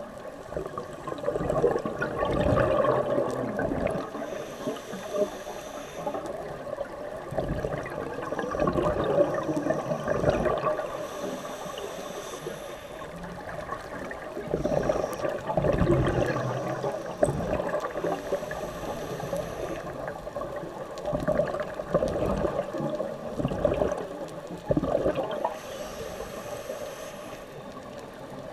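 Scuba breathing heard underwater through the camera housing: gurgling exhaled bubbles swelling and fading in long stretches, with a short high hiss from the regulator about every seven seconds.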